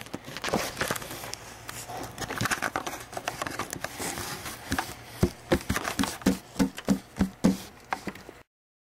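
Close handling noise of a small plastic toy figure and the camera: rustling, scrapes and knocks against the microphone. About halfway in comes a quick run of soft thumps, roughly three a second, and the sound cuts off abruptly near the end.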